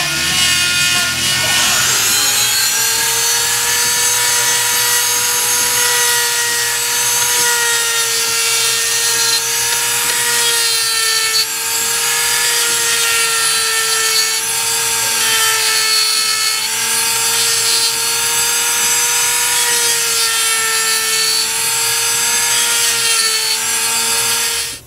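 Handheld high-speed rotary tool with a sanding drum grinding out the aluminium intake port of a two-stroke rotary-valve cover, port matching. A steady high whine that wavers slightly in pitch as the drum bears on the metal, settling into its steady note about two seconds in.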